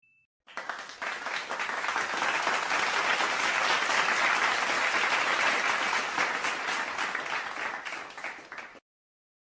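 Crowd applause sound effect: many hands clapping, swelling to a peak in the middle, then dying away.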